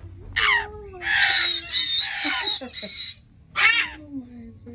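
Young African grey parrot chick calling: a falling whistle, then about two seconds of harsh rasping squawks, and another short falling call near the end.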